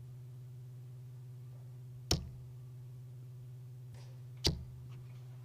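Two darts striking a bristle dartboard, each a short sharp thud, about two and a half seconds apart, over a steady low hum.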